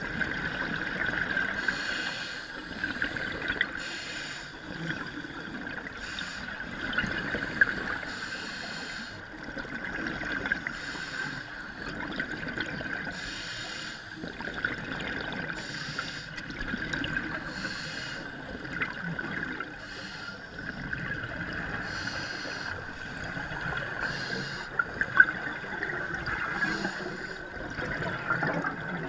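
Scuba divers' exhaled bubbles from their regulators, heard muffled through an underwater camera housing: bubbling bursts every second or two over a steady tone.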